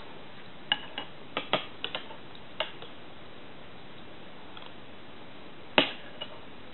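Metal spoon clinking against a porcelain bowl while scooping fruit: a string of short, sharp clinks in the first few seconds, then a louder clink and a softer one near the end.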